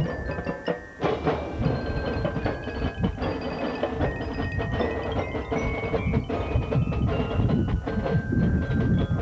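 High school marching band playing its field show, with busy percussion strikes under held instrumental notes.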